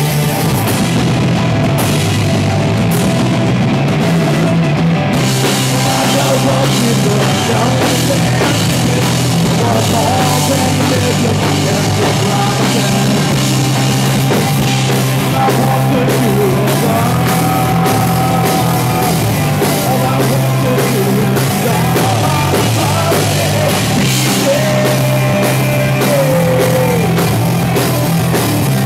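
Rock band playing live and loud: electric guitars, bass guitar and drum kit.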